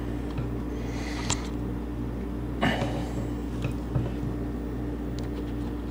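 Handling sounds of a bow release aid hooked on a string D loop and pulled: two short rustles and a few small clicks. A steady low hum with a regular low pulsing runs under it.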